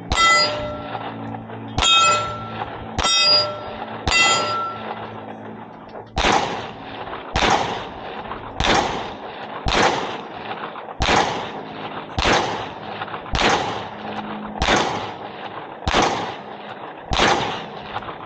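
Gunshots on a range. Four shots in the first four seconds each come with the ringing clang of a hit steel target. Then ten evenly spaced shots follow, about one every 1.2 seconds, each trailing off in an echo with no ring.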